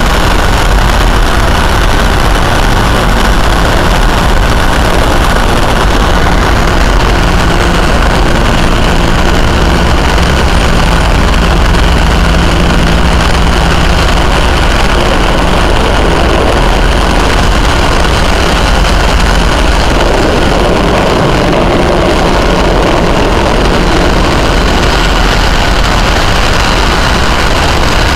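Loud, steady engine and machinery drone with a heavy low rumble, carrying the turbine and rotor noise of a helicopter as it approaches and lands on an offshore platform's helideck.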